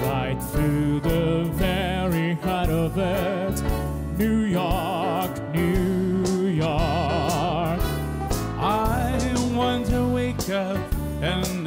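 A live band playing: drums with cymbals, a bass line and a lead melody with a strong, wavering vibrato.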